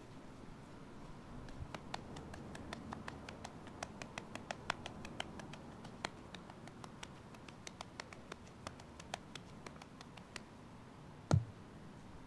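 Hands kneading a lump of wet red clay: a run of small, irregular clicks and squishes, then one dull thump about eleven seconds in as the clay is pressed down onto the clay fireplace.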